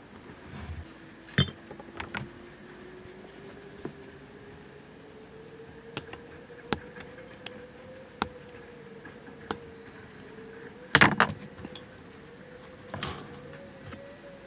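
Small sharp clicks and taps of hobby tools on a cutting mat: tweezers and a hobby knife cutting a tiny brass photo-etch propeller free from its fret. The clicks come singly every second or so, with the loudest quick cluster about eleven seconds in.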